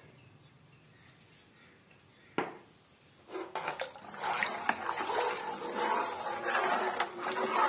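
A metal spoon stirring thin buttermilk-and-gram-flour kadhi batter in a metal pan: sloshing liquid with the spoon scraping and clicking against the pan. It starts about three seconds in, after a single knock.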